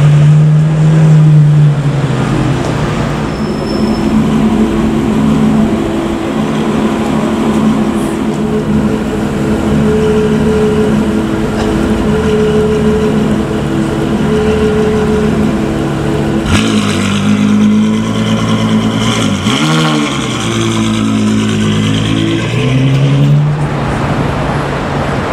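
Ferrari F12berlinetta's V12 running through a Novitec aftermarket exhaust, mostly a steady deep idle. After a cut about two-thirds of the way through, the pitch dips and swings back up, then rises again near the end.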